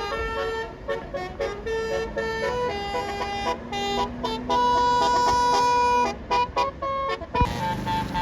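Bus telolet horn, a Basuri multi-tone horn, playing a quick melody of short notes with one long held note about halfway through, over a faint running engine. A sharp knock comes near the end.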